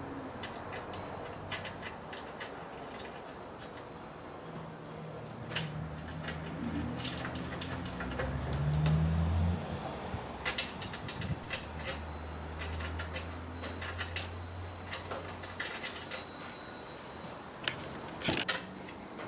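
Metal clinks and clicks of stainless steel nuts, bolts, washers and a spanner as a mower's discharge chute is bolted back on. Under them runs a low hum that swells about nine seconds in.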